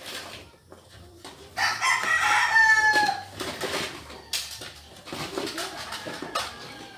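A rooster crowing once. The crow starts about a second and a half in and lasts about a second and a half, dipping in pitch at the end. A few sharp clicks are scattered around it.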